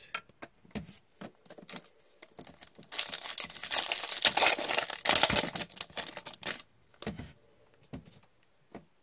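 A foil trading-card pack wrapper being torn open and crinkled, loudest and densest from about three to six and a half seconds in, with scattered light taps and clicks of cards being handled before and after.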